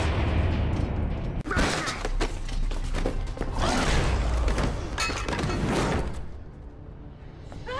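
Fight-scene sound effects: a series of heavy blows and crashing, breaking brick over a low rumble and a dramatic music score. It eases off to a quieter stretch near the end.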